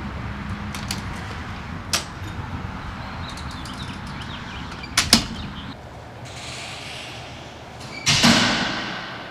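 Sharp knocks and clicks over a steady low hum, then a loud sudden noise near the end that fades away over about a second.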